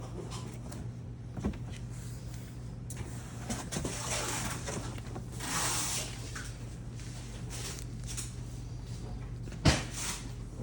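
Cardboard sliding and scraping against cardboard as a display insert is pushed into a box, with a few light knocks and one sharper thump near the end.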